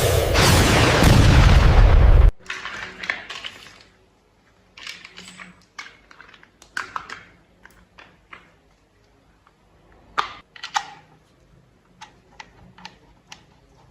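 A loud rushing noise that cuts off suddenly about two seconds in, followed by scattered light clicks and taps of plastic toy vehicle parts being handled and snapped together.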